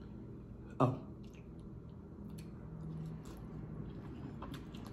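Close-up mouth sounds of eating spaghetti: wet chewing and slurping clicks, with one short, loud smack about a second in.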